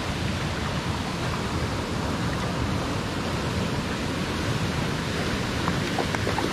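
Steady rushing noise of flowing water, with a few small splashes near the end as a hooked trout thrashes at the surface.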